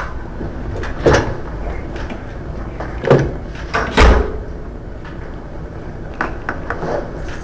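Courtroom room noise, a steady low hum, with a few scattered knocks and thumps. The loudest thump is about four seconds in, with smaller ones about one and three seconds in and light clicks near the end.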